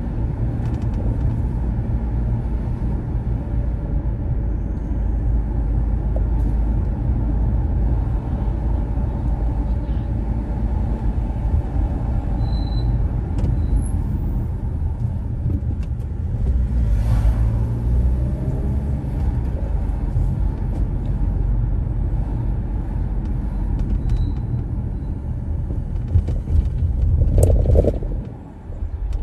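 Car driving, a steady low rumble of engine and road noise. There is a brief louder sound near the end, then a momentary drop in level.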